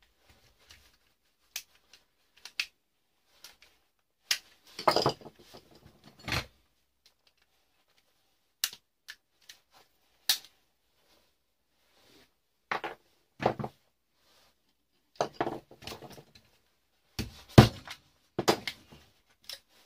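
Plastic fuse-box components being prised and cracked apart with a screwdriver: irregular sharp clicks, cracks and clatters of plastic and small metal parts. The loudest bunches come about five seconds in and again in the last few seconds.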